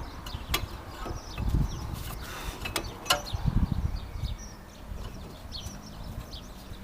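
A few sharp clicks and knocks of brake parts being handled and fitted at the wheel, clearest about half a second in and again about three seconds in, over soft low handling noise.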